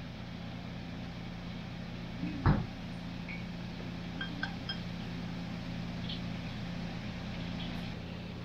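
Steady low hum of a small room's background, with one dull thump about two and a half seconds in and a few faint light clicks a little later.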